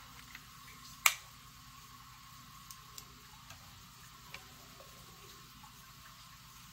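A test vial and a handheld Hanna Checker being handled: one sharp click about a second in, then a few faint ticks, over a faint steady background hum.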